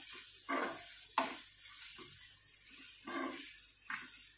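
Spatula stirring and scraping chopped onions and spices frying in oil in a pan: several scraping strokes over a steady sizzle, with one sharp tap of the spatula against the pan about a second in.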